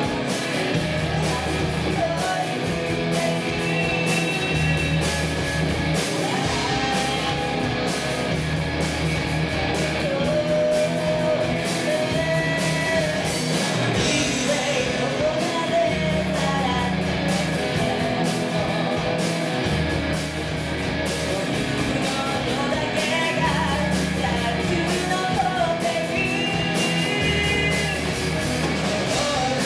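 Live band performing a song: a lead vocalist singing over electric bass, guitar and drums.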